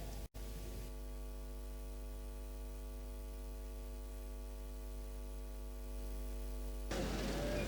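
Faint, steady electrical mains hum, a buzzy stack of even tones. About seven seconds in it gives way to faint, even background noise.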